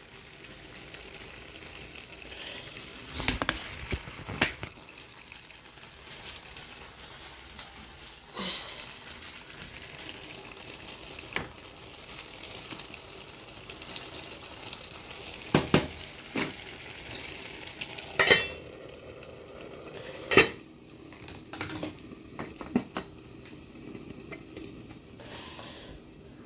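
Spaghetti cooking in a steel pot with a steady low sizzle, broken by scattered knocks and clinks of a wooden spoon and utensils against the pot.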